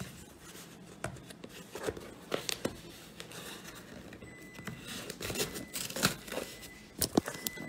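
Scissors cutting into a cardboard shipping box and its tape, with scattered snips, scrapes and crinkling of cardboard and tape.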